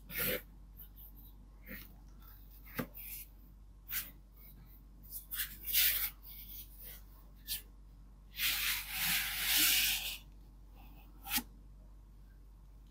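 Hands handling a boxed book and its paper and card packaging: a string of short rubbing and scraping strokes with a few light taps. About eight and a half seconds in comes one longer sliding rub lasting under two seconds.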